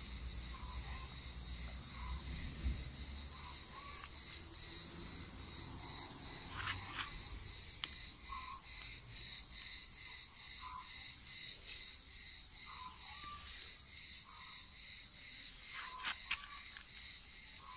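Insects chirring steadily in a continuous high trill, with a few faint short chirps scattered through it.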